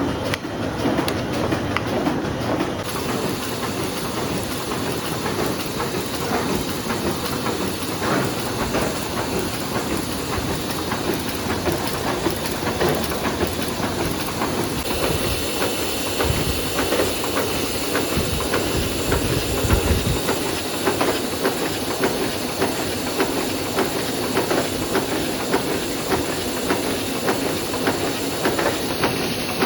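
Offset printing press running, a dense steady mechanical clatter with hiss and a regular beat a little more than once a second. A low rumble swells and fades about two-thirds of the way through.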